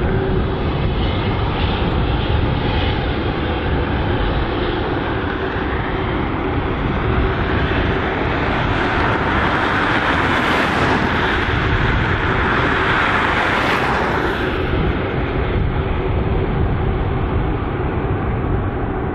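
Twin-engine jet airliner passing on its landing approach: a steady rumble with a jet roar that swells to a peak about ten to fourteen seconds in, then fades.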